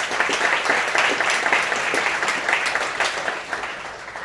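Audience applauding, a dense patter of many hands clapping that thins and fades out near the end.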